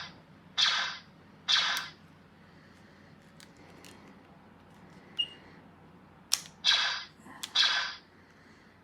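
Mandalorian blaster prop replica firing its electronic blaster sound effect: four short shots in two pairs, the second pair about five seconds after the first, with sharp trigger clicks in between.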